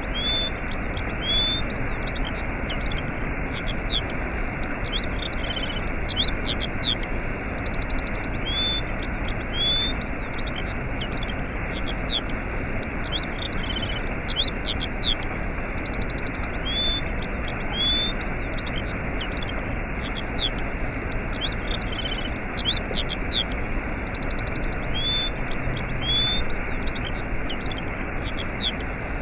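Waterfall rushing steadily, with songbirds chirping and trilling over it; the same run of birdsong repeats about every eight seconds.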